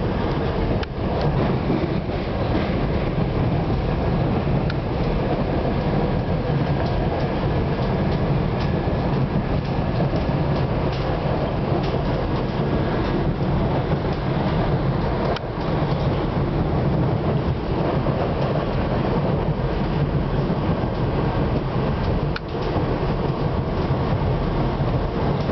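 PATCO Speedline rapid-transit train running at speed, a steady rumble of wheels on rails with a low hum, briefly dipping three times.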